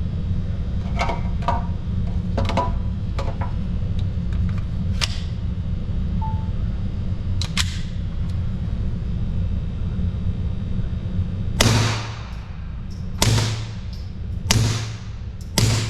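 Suppressed .22 pistol, a Kel-Tec P17 fitted with a Warrior Systems Legionary 22 suppressor, firing four shots a little over a second apart in the last few seconds. Before that, only faint sharp ticks over a steady low rumble.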